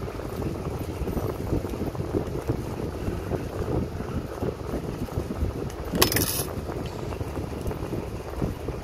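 Steady low rushing noise of air buffeting the microphone, with a short sharp hiss about six seconds in.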